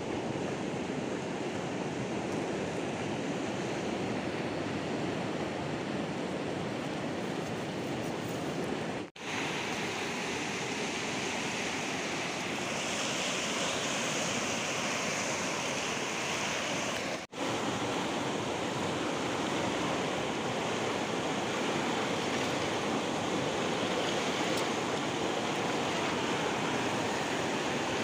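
Steady rush of a fast, churning muddy river, a constant even roar of moving water that breaks off for an instant twice.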